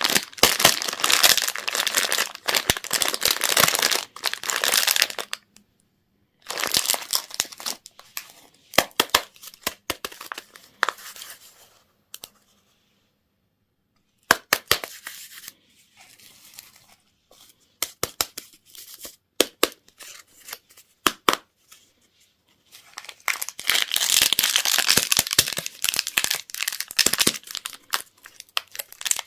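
Candy and toy packaging being torn open and crinkled: dense crackly rustling for the first few seconds and again near the end, with scattered sharp clicks and snaps between and a brief dead silence about halfway through.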